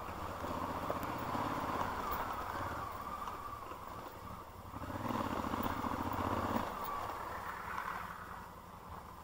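A vehicle engine running at low revs over rough ground, pulling harder for a couple of seconds past the middle, then fading near the end.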